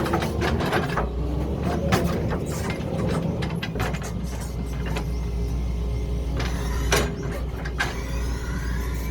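Excavator engine running steadily while its bucket clanks and knocks against rocks, with a string of sharp knocks, the loudest about seven seconds in.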